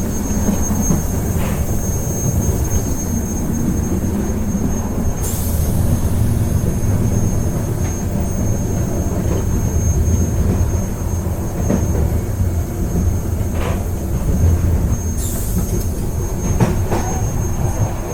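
Train running along the rails, heard on board: a steady low rumble with a thin high whine over it, a few faint clicks, and two brief hissing rushes about five and fifteen seconds in.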